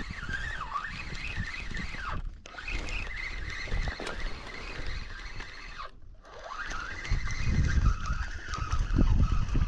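Spinning fishing reel whirring as a hooked fish is cranked in, its pitch wavering with the cranking speed and cutting out briefly twice. Wind rumbles on the microphone, most strongly near the end.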